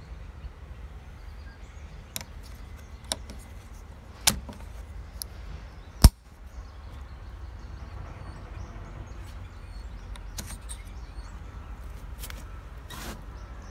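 Aluminum yoke clip of a dog cart handled and snapped onto the metal yoke bar: a few light metal clicks and one sharp snap about six seconds in, over a steady low outdoor rumble.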